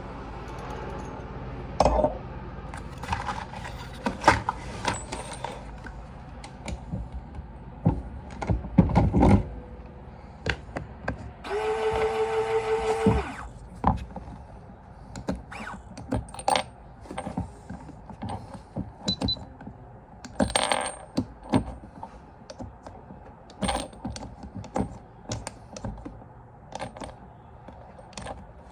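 Brass .40 S&W cartridge cases and rounds clinking and clicking against metal and each other during handloading, a string of separate sharp clinks with some short ringing. About twelve seconds in, a steady buzzing hum lasts under two seconds.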